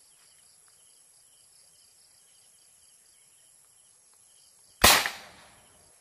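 A marble gun fired once about five seconds in: a single sharp crack that dies away within about half a second.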